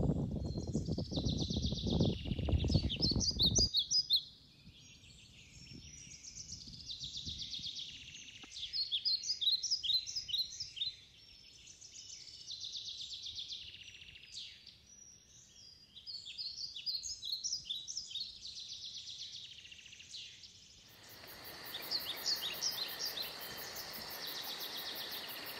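Songbirds singing, short rapid phrases repeated every few seconds, over a low rumble for the first four seconds. About 21 seconds in, a steady hiss and a fast, even, high-pitched insect trill join.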